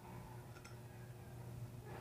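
A couple of faint clicks a little over half a second in and another near the end, from small bicycle hub parts being handled, over a steady low hum.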